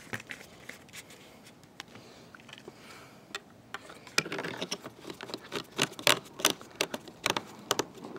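Hard plastic clicking and scraping as a hose-end sprayer head, with its dip tube, is pushed into and fitted onto its plastic jar. A few scattered clicks, then quick, dense clicks about four seconds in.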